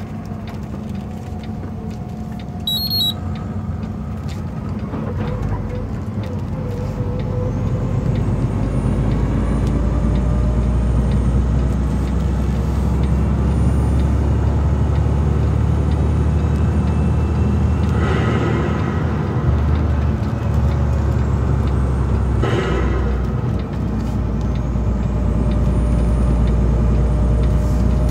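Inside a tractor-trailer's cab at highway speed: steady engine and road drone that grows louder a few seconds in as the truck picks up speed. A short electronic beep sounds about three seconds in.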